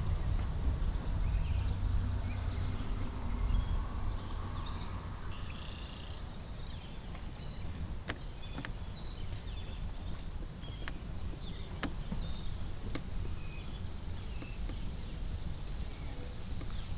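Outdoor ambience: a steady low rumble with faint, scattered bird chirps and a few sharp clicks.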